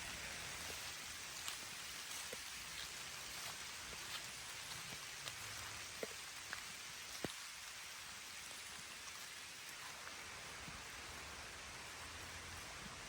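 Light rain falling, a steady soft hiss with scattered individual drops ticking close by.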